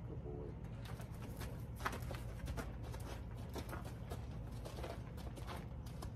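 A horse walking on sandy ground: irregular soft hoof steps as it moves around its handler, over a steady low rumble.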